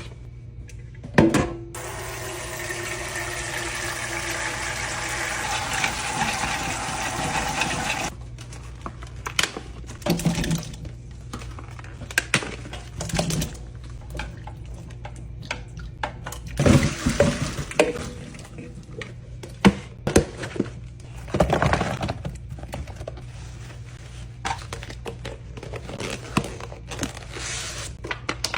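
Water from a tap running for about six seconds, starting about two seconds in, with a shifting pitch as a container fills. It is followed by scattered knocks and clunks of things being handled and set down.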